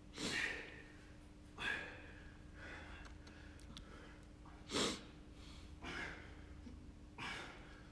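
A man breathing hard from exertion during tuck-in sit-ups: about six short, sharp puffs of breath, faint and unevenly spaced.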